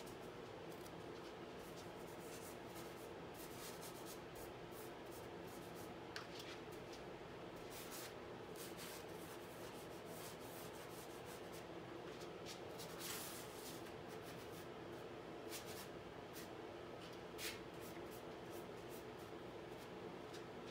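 Paintbrush rubbing and scraping across a stretched canvas in short, irregular strokes, faint, over a steady low room hum.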